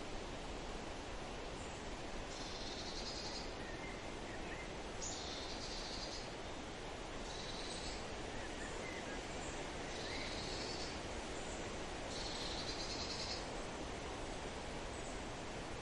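Steady forest wind with a bird repeating a short, high song phrase about every two and a half seconds, and a few faint chirps.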